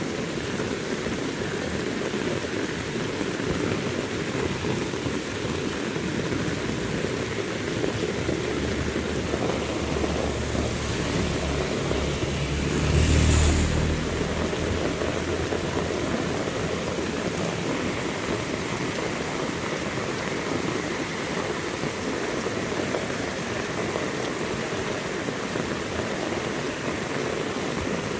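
Heavy rain falling steadily. About halfway through, a low rumble builds, peaks with a brief sharp crack, and dies away within a few seconds.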